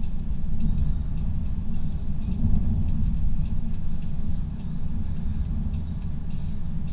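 Steady low rumble of a car cruising at highway speed, heard from inside the cabin: tyre and engine noise.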